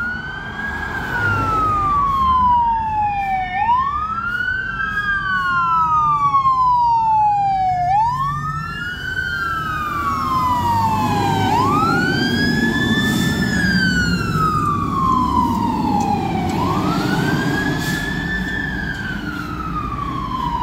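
Fire engine siren wailing in slow cycles, each a quick rise in pitch and then a long falling glide, about every four seconds. The truck's engine rumble grows louder about halfway through as the engine passes.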